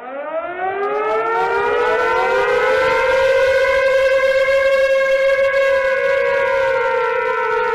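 Civil defence siren winding up from silence, rising in pitch over about three seconds, then holding a steady wail that sags slightly in pitch near the end.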